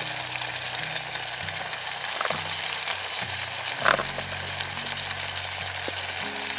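Thick curry gravy sizzling and bubbling in a pot on a gas camping stove, a steady hiss. Two short knocks, the louder about four seconds in, come as paneer cubes go in and are stirred with a wooden spoon.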